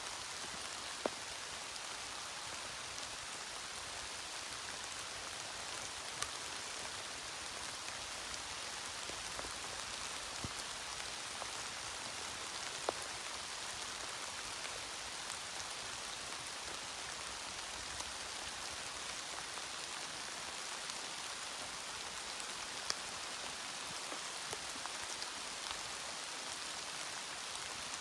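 Steady light rain falling on the forest's leaf litter and branches, a constant hiss with scattered sharp ticks of single drops landing close by.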